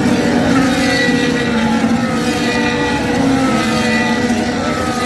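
Several Formula 1 cars' turbocharged V6 engines running hard on the circuit, a loud continuous engine noise with several pitches sliding slowly up and down together.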